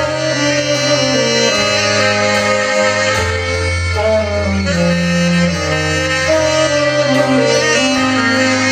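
Alto saxophone playing an improvised melodic line over a backing track with sustained low bass notes.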